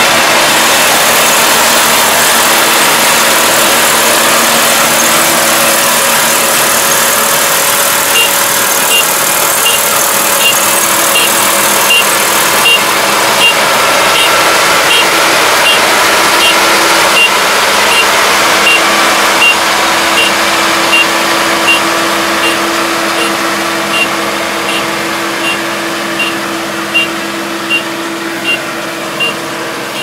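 Iseki Japan 4075 rice combine harvester's diesel engine running steadily at close range. From about eight seconds in, a short high beeper sounds roughly twice a second, and the machine grows fainter near the end as it moves off.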